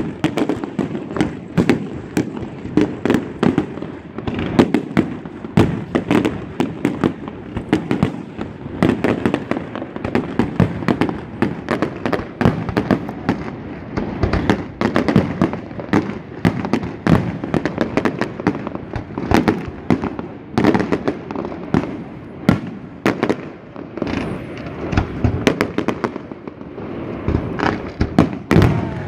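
Aerial fireworks display, shells bursting overhead one after another: a run of sharp bangs, several a second, without a break.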